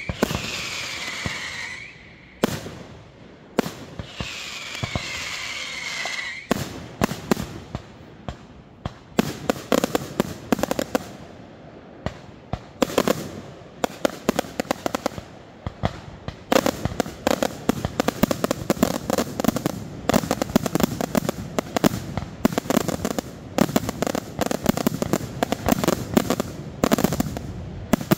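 Fireworks display: two whistling effects falling in pitch over the first few seconds, then a dense barrage of bangs and crackling shells, many reports a second, that keeps going from about a third of the way in.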